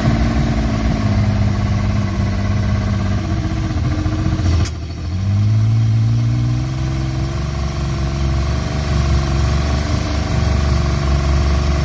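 Yamaha four-stroke 200 hp outboard motor running steadily. About halfway through there is a click, the engine note dips briefly, then rises and holds a little higher.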